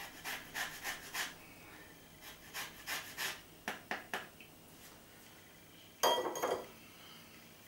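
Lemon being grated on a hand-held rasp grater: quick scraping strokes in short runs. About six seconds in, a louder clatter as the grater knocks against a small ceramic bowl.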